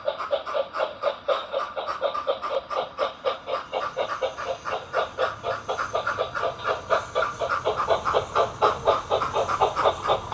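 Model steam locomotives' onboard sound chuffing steadily, about five chuffs a second, as the double-headed train approaches. A low rumble of wheels on the track builds from about halfway in.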